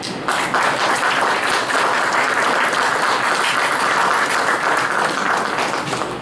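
Small audience applauding, many hands clapping together. The clapping starts just after the beginning, holds steady and tapers off near the end.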